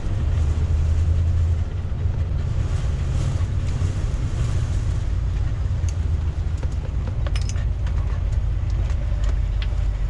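Class A motorhome under way, heard from inside the cab: a steady low engine and road rumble, with a few short clicks or rattles in the second half.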